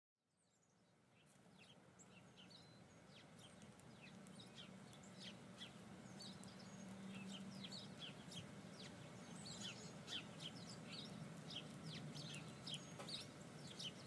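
Faint outdoor ambience fading in after about a second of silence: many short bird chirps and calls over a steady low hum.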